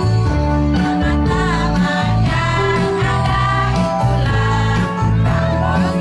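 Women's choir singing with instrumental accompaniment that holds low bass notes under the voices.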